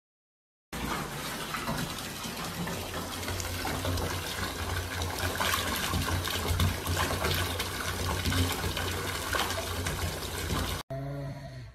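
Bath mixer tap running, a steady stream of water pouring into a partly filled bathtub. It starts suddenly about a second in and stops abruptly near the end.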